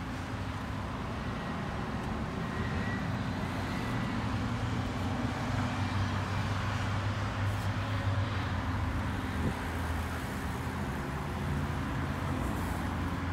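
Red cloth side brushes of a Mark VII ChoiceWash XT car wash spinning and scrubbing against the car's side windows, heard from inside the car as a steady rush of brushes and water over a low hum.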